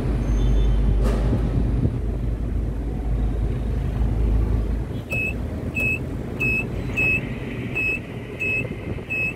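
A deep, steady rumble of machinery stops about five seconds in. It is followed by a repeating high-pitched electronic warning beep, about three beeps every two seconds.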